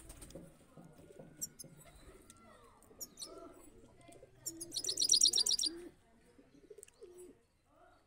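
Caged European goldfinch singing: a few thin high chirps, then a fast, high trill lasting about a second around the middle, the loudest sound. Low pigeon cooing continues underneath.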